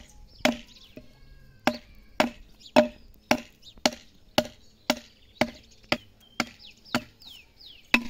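Chopping blows of a steel blade into a squared wooden log, hewing an ox-cart axle by hand. There are about fourteen sharp strokes at a steady rhythm of roughly two a second.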